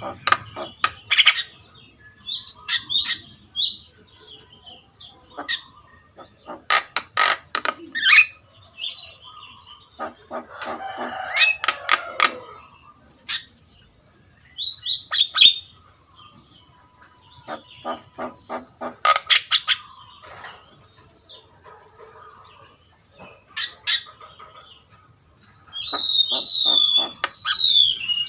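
Javan myna singing a varied medley of whistled phrases, harsh notes and rapid clicking rattles, with a run of falling whistles near the end.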